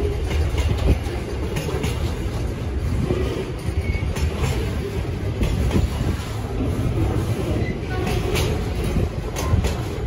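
Container wagons of a freight train rolling past close by: a steady low rumble of steel wheels on rail, with irregular clacks and knocks from the wheels and a few brief faint squeaks.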